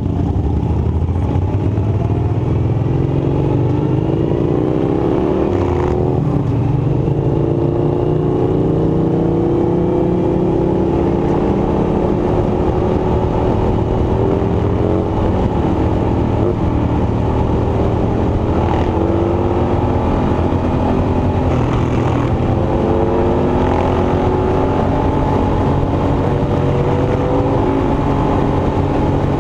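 An engine running steadily for the whole stretch, its pitch drifting slowly up and down as the load or throttle changes.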